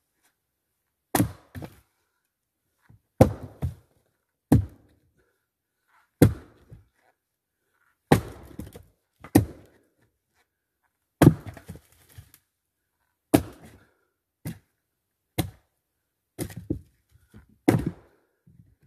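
Fiskars X25 splitting axe chopping into a eucalyptus hardwood trunk: about a dozen sharp strikes one to two seconds apart, several followed by a quieter knock.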